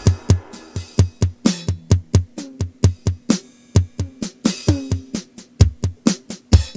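E-mu Pro/Cussion percussion module playing one of its preset drum sounds in a steady rhythmic pattern: deep low hits alternating with sharper hits, several per second, some of them pitched tones that drop quickly in pitch.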